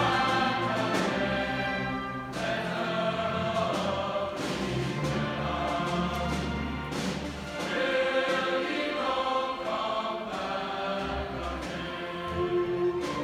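Large mixed choir singing a traditional Scottish song with string orchestra accompaniment.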